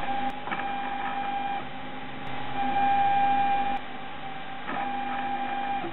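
Prusa i3 3D printer running a print: its stepper motors whine steadily as the print head and bed move. The tone shifts in loudness every second or so as each move changes.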